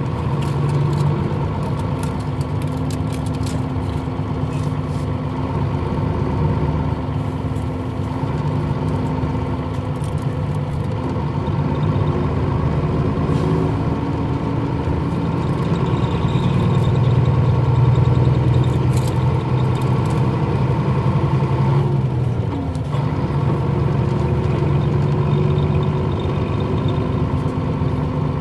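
Nissan Diesel KL-UA452MAN city bus running under way, its diesel engine note swelling and easing with the road. The engine note drops briefly about two-thirds of the way through, then picks up again.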